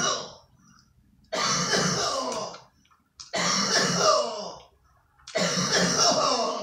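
A man making three loud, throaty sounds from the throat, each about a second long and a second or so apart.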